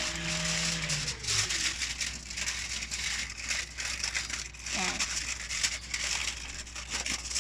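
Aluminium foil crinkling and crumpling as it is pressed and folded around a grill's drip tray.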